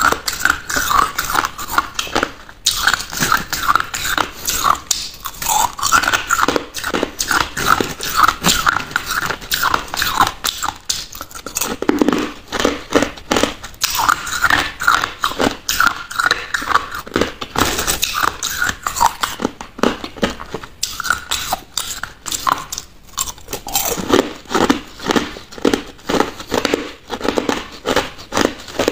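Crushed ice crunched between the teeth: a rapid run of crisp crunches, with a few short breaks between mouthfuls.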